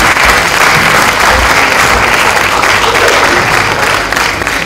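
Audience applauding, a dense steady clapping that eases slightly near the end.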